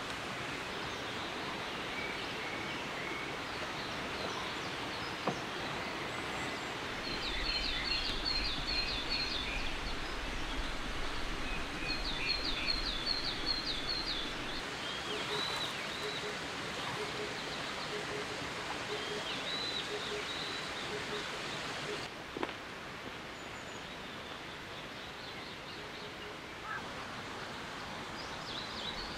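Outdoor ambience of steady rushing noise with small birds chirping: quick repeated trills in the first half and a few single calls later. There is a brief click a few seconds in, and the background drops a little about three quarters of the way through.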